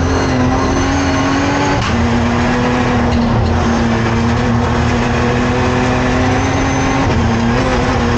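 BMW 1M hillclimb car's engine heard from inside the cockpit, running under hard load up the climb with heavy road noise. The revs climb, then fall sharply about two seconds in, and the car is shifted through the gears.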